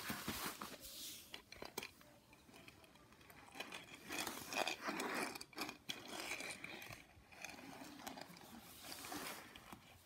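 Toy cars pushed across a play mat and plastic toy pieces handled: soft scraping and rubbing with scattered light clicks, busiest about halfway through.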